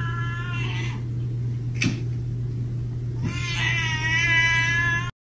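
Domestic cat yowling in two long, drawn-out wavering meows, the first trailing off about a second in and the second starting just past three seconds. A single sharp click falls between them.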